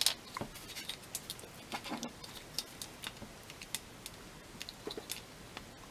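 Irregular small clicks and taps of hard plastic as an action figure's feet are fitted onto its plastic hoverboard and clear flight stand.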